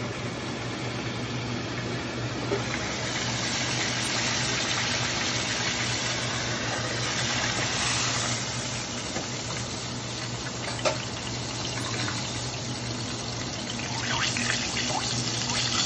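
Battered food sizzling in hot oil in a Cuisinart electric deep fryer, a dense steady hiss over a low steady hum. A single sharp click comes about eleven seconds in, and crackling and popping pick up near the end.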